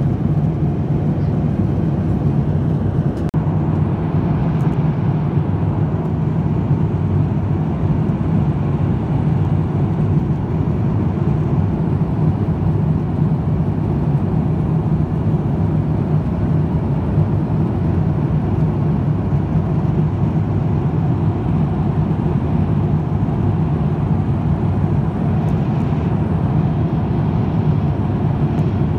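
Steady, low-pitched cabin noise of an airliner in flight: the jet engines and the rush of air past the fuselage, heard from a window seat.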